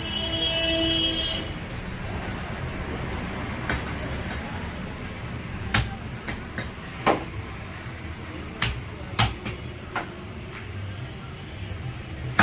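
Butcher's cleaver chopping mutton: a handful of sharp, separate strikes over background traffic noise, with a vehicle horn sounding briefly at the start.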